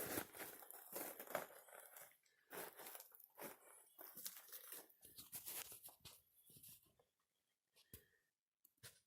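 Faint, irregular crunching and rustling, fading out after about seven seconds into a few isolated clicks.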